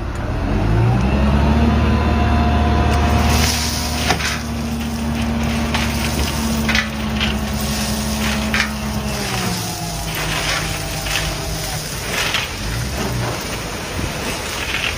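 A large engine running at a steady pitch, its note dropping away about nine seconds in, with crackling and a few sharp knocks over it.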